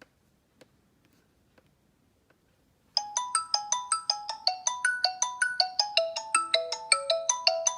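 Xiaomi Redmi Note 4 stock ringtone starting about three seconds in: a fast, repeating melody of short, bright notes, about four a second, after a few faint clicks.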